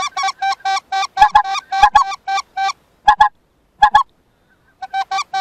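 Goose call blown close by to lure geese: runs of short, high honks at about four a second, broken by two short pauses, some of the honks coming in quick pairs.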